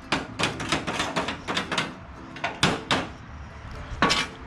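Irregular metallic knocks and rattles from an old gas oven being handled and shaken out to clear debris, about a dozen hits spread unevenly.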